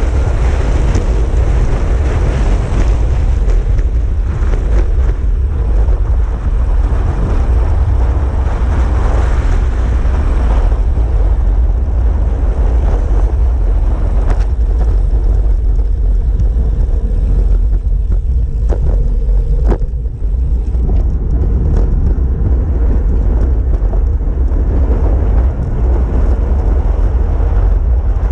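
Wind buffeting the camera microphone of a road bike descending at 45 to 65 km/h: a loud, steady low rumble of rushing air. A few short clicks about two-thirds of the way through.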